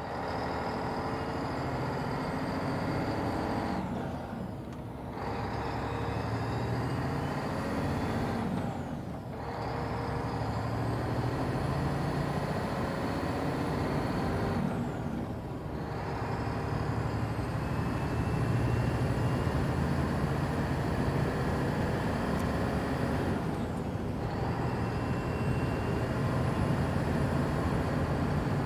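Heavy trucks running, with air-brake hiss, a dense steady engine sound that dips briefly four times.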